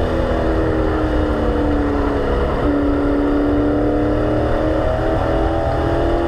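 Race car's engine heard from inside the cabin at speed, its pitch dipping about two and a half seconds in and then climbing steadily as it pulls again, over a constant low road and wind rumble.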